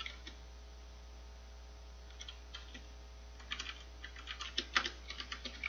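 Computer keyboard typing: a few scattered keystrokes, then quicker runs of key clicks from about halfway through, over a faint steady low hum.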